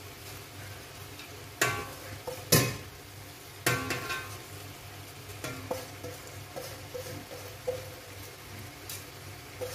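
Metal utensils clinking and knocking against a large cooking pot as herbs and spice mix are added to the layered biryani. There are several sharp strikes that ring briefly, the loudest in the first four seconds, over a steady low hum.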